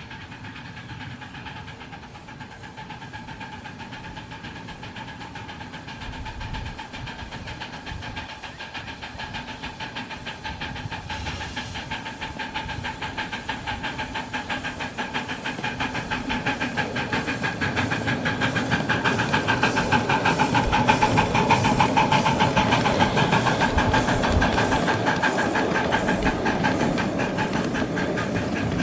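Live steam model of Chicago Great Western steam locomotive 292 running, with a steady steam hiss and rapid exhaust chuffs. It grows steadily louder as it approaches, loudest about two-thirds of the way through, then eases off a little.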